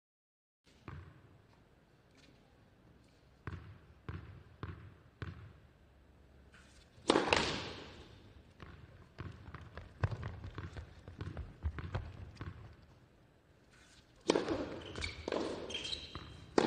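Tennis ball bounced several times on an indoor hard court before a serve, about two bounces a second, then the racket hits and ball bounces of a rally. Louder sustained bursts come about seven seconds in and again near the end.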